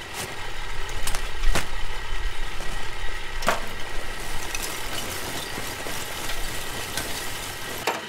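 Steady drone of the air blower feeding the bloomery furnace through its pipe, with a low hum under it. Several sharp clicks and knocks cut through it, the clearest about a second and a half and three and a half seconds in.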